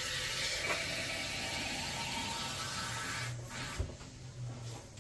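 Water poured into a cooking pot to top up the broth, a steady splashing hiss for about three and a half seconds that stops abruptly, followed by a single soft knock.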